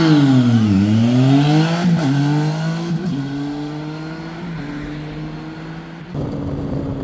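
Zontes 703F's 699 cc three-cylinder engine accelerating. Its note falls away, then climbs, with quick drops in pitch at upshifts about two, three and four and a half seconds in, and settles to a steadier note. Revs are capped at 6,000 rpm by the break-in limiter. Wind noise swells near the end.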